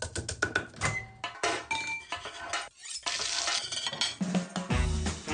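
Kitchen sounds in quick succession: knife strokes on a wooden cutting board and the clink of utensils and pans, with a short stretch of sizzling about three seconds in. Music with a strong bass line starts near the end.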